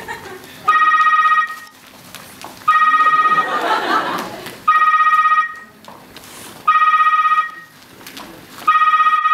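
Telephone ringing: a trilling electronic ring about two-thirds of a second long, repeating every two seconds, five rings in all. A brief swell of audience noise comes between the second and third ring.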